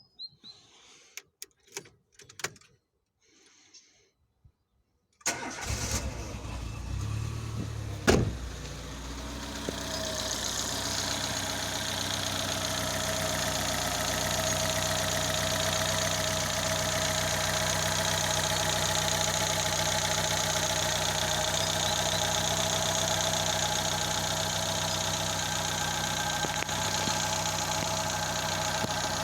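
A few faint clicks, then a car engine starts about five seconds in and settles into a steady idle, with one sharp knock a few seconds after it catches.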